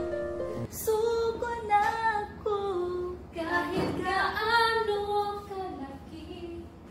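A woman singing unaccompanied, holding long notes that slide from one pitch to the next.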